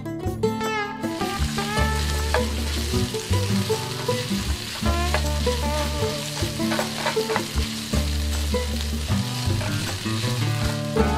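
Food sizzling as it fries in a hot pan, a steady crackling hiss, over background music with sustained bass notes.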